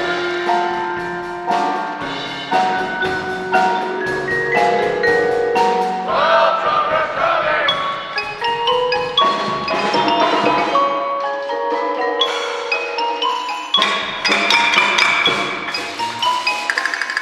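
School percussion ensemble playing a tune on pitched mallet instruments, rapid struck notes at many pitches, with wood block clicks.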